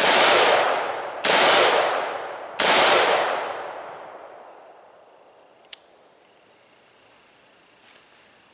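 Freshly home-built AR-15 pistol fired three times, about a second and a quarter apart, each shot followed by a long echo that dies away. A faint click comes a few seconds after the last shot.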